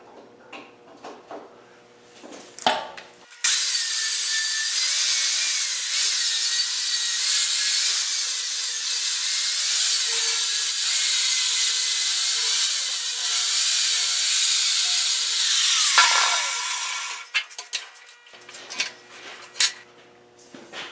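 A grinder grinding welds on mild steel to blend them smooth. It comes in loudly about three seconds in, its pitch wavering as it is pressed into the work, and winds down with a falling whine about sixteen seconds in. Light clicks of handling come before and after.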